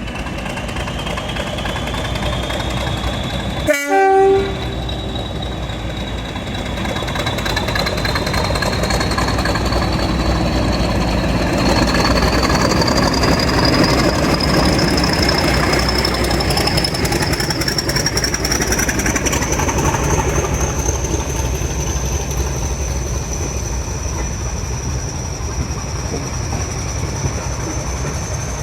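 A train running past with a steady rumble. It sounds a short horn blast about four seconds in, and a high whine climbs slowly in pitch as it goes.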